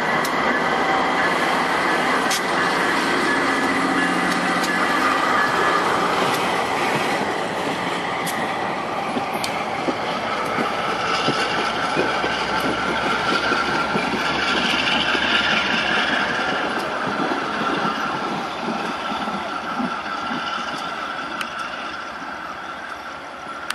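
A passenger train's stainless Budd cars rolling past, wheels clicking over rail joints with a thin, steady high squeal, fading as the train draws away near the end.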